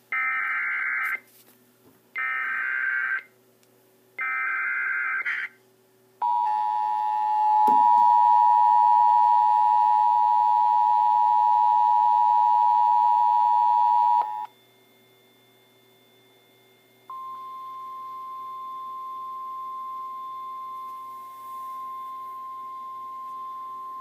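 Sage EAS ENDEC sending an Emergency Alert System activation. Three one-second bursts of SAME header data screech, then the two-tone EAS attention signal holds steady for about eight seconds. After a short pause a single steady tone of about 1 kHz sounds through the end.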